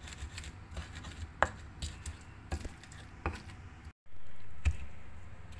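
A pestle crushing and grinding boiled green chilies and tomatoes in a mortar: irregular knocks and wet scrapes of the pestle against the mortar, with a brief dropout about four seconds in.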